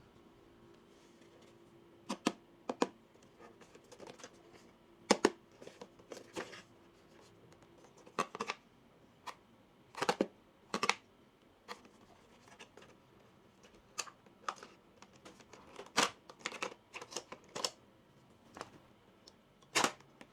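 Small plastic toy kitchen pieces handled and set down: irregular light clicks and taps, a couple of dozen over the stretch.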